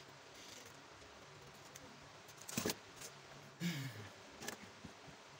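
Steel scissors cutting the edge of a black rubber sandal sole piece: a few sharp snips and clicks from about halfway through, with a short scrape among them, after a quiet start.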